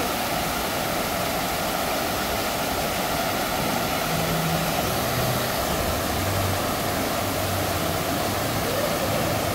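Steady rush of falling and splashing water from the water park's waterfalls, an even hiss with no breaks, with a faint low hum of distant voices.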